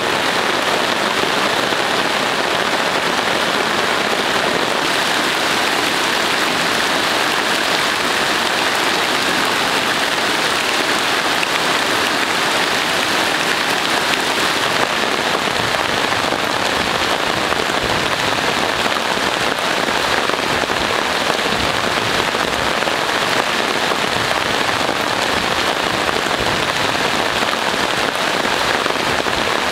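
Heavy tropical rain pouring down steadily, without letup.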